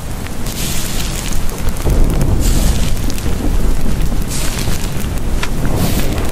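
Loud, dense rumbling noise with a hiss on top, swelling and easing every second or so, with no clear tone or beat.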